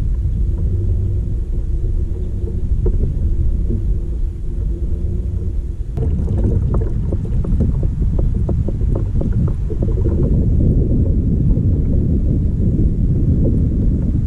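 Wind rumbling on the microphone with water slapping against a kayak's hull. About six seconds in it turns choppier, with many small splashes and knocks against the boat.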